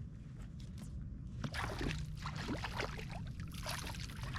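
Water sloshing and trickling around a kayak, with a run of short splashes, clicks and knocks from about a second and a half in as a freshly landed bass is handled on board.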